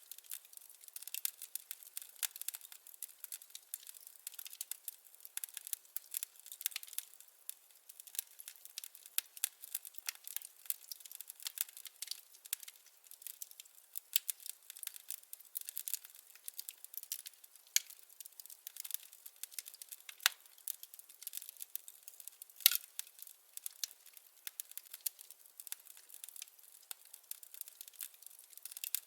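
Burning firewood crackling, a steady run of small irregular pops and snaps, with a sharper, louder pop about three-quarters of the way through.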